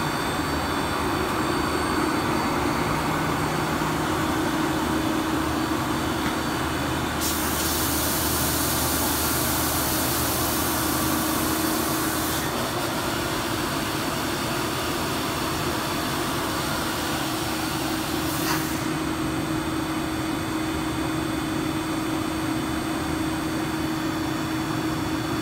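Blown film extrusion line running: a steady machine hum and rush of cooling air with a constant tone underneath. A harsher hiss of air comes in from about 7 to 12 seconds in, and there is a short click about 18 seconds in.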